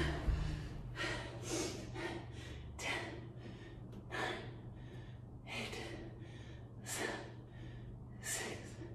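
A woman breathing hard from exertion during a core workout: sharp, audible breaths, roughly one every second and a half.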